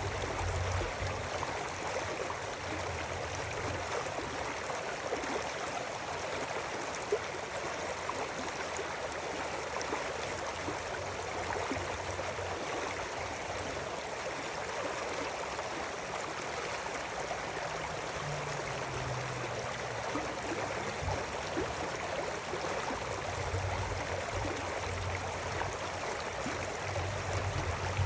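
River water flowing steadily with a continuous rushing babble, with a few low rumbles now and then.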